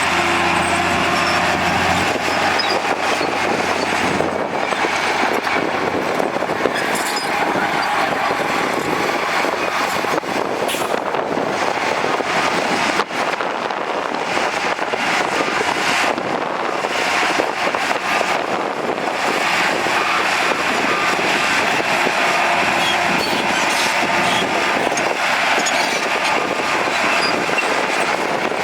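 Heavy construction machinery running steadily, a dense even engine and mechanical din. A deeper engine tone drops away about two seconds in.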